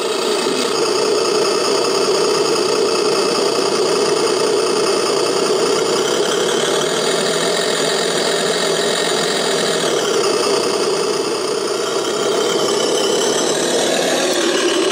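RC tractor's electronic engine-sound unit playing a steady engine idle, switched on together with its lights. The sound shifts a little about ten seconds in as the tractor starts working its plow and moving.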